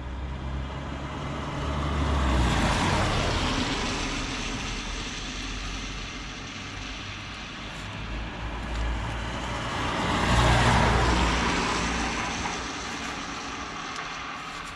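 Two vehicles passing on a road one after the other, each swelling and then fading away with engine rumble and tyre noise. The first peaks a couple of seconds in and the second about ten seconds in.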